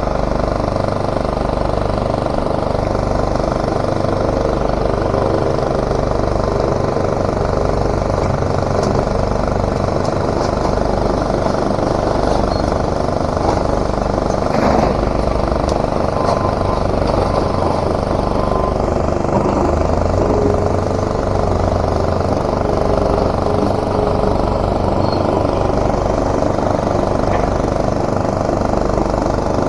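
Heavy diesel plant machinery running steadily with a low, even pulse, and a single knock about halfway through.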